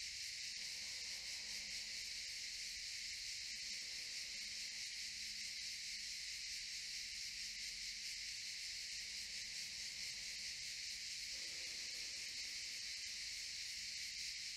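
Cicadas in a steady, high-pitched droning chorus.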